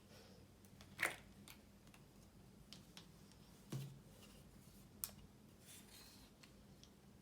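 Quiet handling sounds: a few light taps and clicks, the loudest about a second in, another just before four seconds and a sharp one about five seconds in, over faint room hum.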